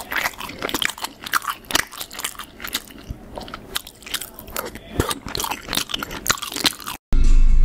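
Chewing gum being chewed close to the microphone: a dense run of irregular wet smacks and clicks of the mouth.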